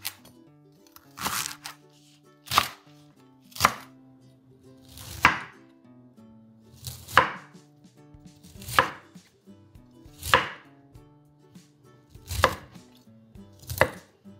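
Chef's knife chopping through leek and then broccoli on a wooden cutting board: single cuts, each ending in the blade knocking the board, about nine in all, one every second or so.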